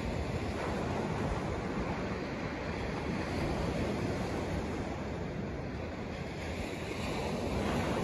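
Small waves breaking and washing up a shingle shore, a steady surf wash, with some wind rumble on the microphone.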